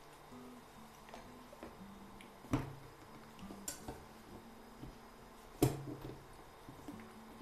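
Plastic lid being fitted onto a glass bowl: two sharp clicks about three seconds apart as it is set on and pressed down over the rim, with lighter taps and rubbing of plastic on glass between.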